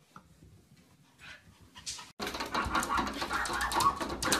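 A dog panting rapidly. It starts suddenly about two seconds in, after a quiet stretch.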